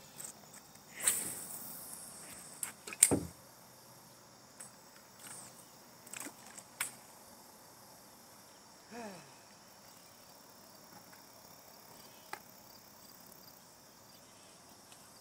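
A fishing cast: a whoosh of line whizzing off the reel about a second in, a sharp click a couple of seconds later, then a few small clicks. Crickets chirp steadily behind it.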